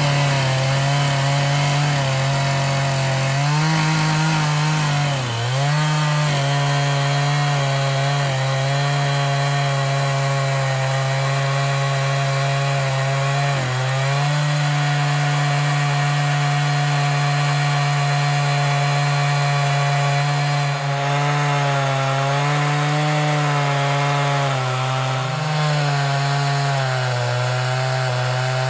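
Chainsaw on a chainsaw mill running at full throttle, cutting lengthwise through a large pine log. The engine note holds steady, dipping briefly in pitch a couple of times as the saw loads up in the cut.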